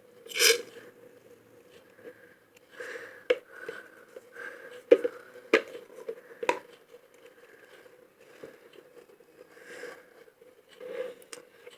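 Scattered clicks, taps and soft squishy rustles of slime ingredients and their containers being handled and added to a mixing bowl, over a faint steady hum.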